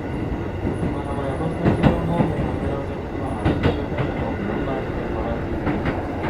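Keikyu 1500 series field-chopper motor car running, heard from inside the car: a steady rumble, with the wheels knocking over track joints twice, about two seconds apart.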